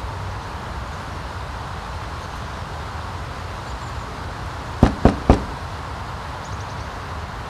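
Three quick knocks on a door, about five seconds in, over a steady background hum.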